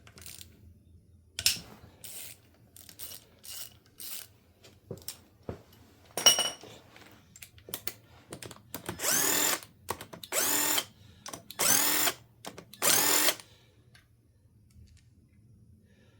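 Clicks and knocks of tools and sockets on engine bolts, then a cordless power tool spinning out the camshaft cap bolts in four short runs of about a second each, its whine rising as each run starts.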